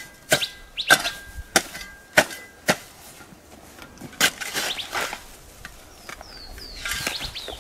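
Steel shovel blade striking and chopping hard, dry soil in sharp strokes, five in the first three seconds and another with scraping about four seconds in, as earth is worked around a newly planted maguey. Birds chirp with short falling calls near the end.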